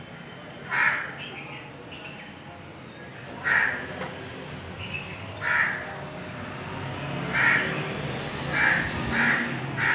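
Crow cawing: short, harsh caws repeated a few seconds apart, coming closer together near the end.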